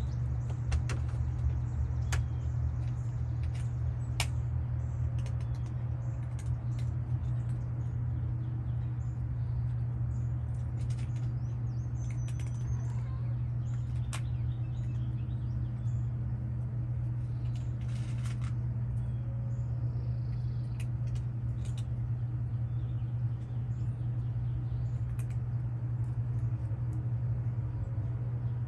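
A steady low mechanical hum runs throughout, with scattered short clicks and a few faint high bird chirps.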